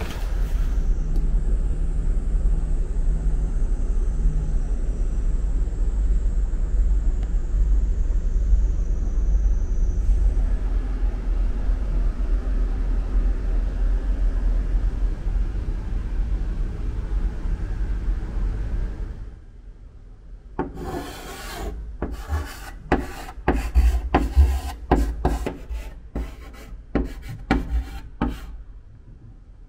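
A steady low rumble for about the first two-thirds. It then stops and gives way to chalk writing on a blackboard: a quick run of short scratching strokes and taps as the chalk forms letters.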